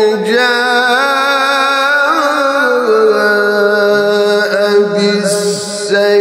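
A man reciting the Quran in the melodic tajwid style, drawing out long held notes with wavering vibrato and ornamental turns in pitch, with only brief breaks.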